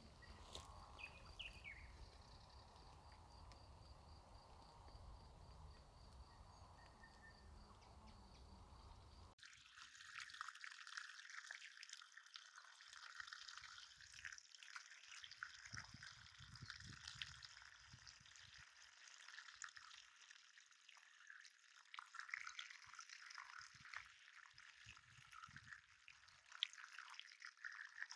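Faint nature sound effects: a soft outdoor hiss with a few faint chirps, which cuts abruptly about a third of the way in to water trickling and dripping.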